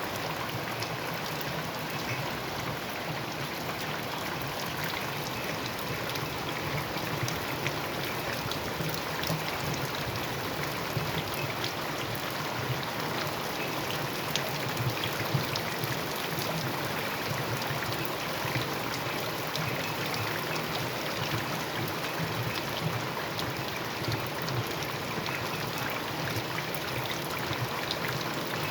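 Steady rain, with many separate drops ticking over an even wash of falling and running water.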